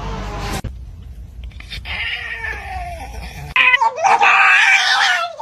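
A cat yowling: a wavering meow, then a loud, harsh, drawn-out caterwaul in the last two seconds.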